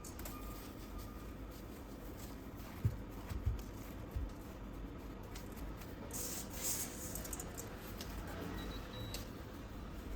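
Quiet food-preparation handling sounds: a few soft low thumps about three seconds in, then rustling scrapes a little past the middle.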